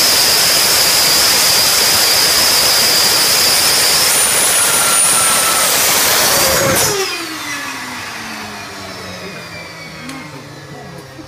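Go-kart's small jet turbine running loud and steady at high power, with a high whine over the roar. About seven seconds in it is cut back sharply, and its whine falls steadily as the turbine winds down.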